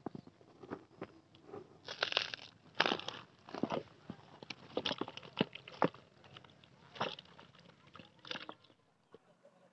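Dry banana-stem sheaths crackling and crunching as they are pulled apart and handled, in irregular scattered bursts.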